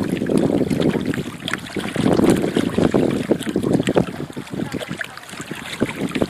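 Indus River water lapping and splashing in waves that swell and ebb every couple of seconds, with wind rumbling on the microphone.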